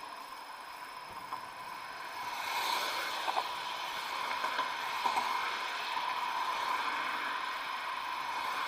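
Road and wind noise from riding a bicycle across a bridge with car traffic passing alongside, with a thin steady whine throughout. The noise swells about two and a half seconds in, and a few light clicks come around three and five seconds in.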